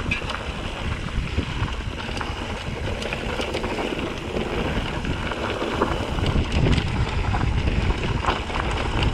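Wind rushing over the microphone while a mountain bike rolls down a rocky trail, its tyres and frame rattling with many small clicks and knocks over the rocks.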